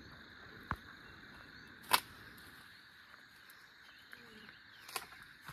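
Quiet outdoor ambience with a steady faint insect drone, broken by three sharp clicks or knocks, the loudest about two seconds in.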